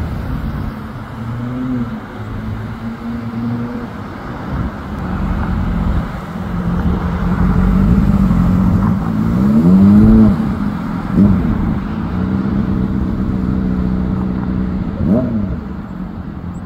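Motor vehicle engines running steadily over a low rumble, the engine note rising and falling again several times, loudest about ten seconds in.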